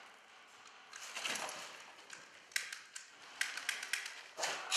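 Scattered sharp clicks and snaps of an airsoft firefight in a bare concrete building, BBs flying as the shooting comes in. The clicks thicken in the second half, with the loudest crack near the end.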